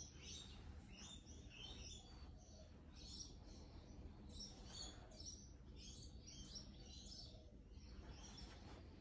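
Faint bird chirping: repeated short, high twittering phrases over a low steady hum.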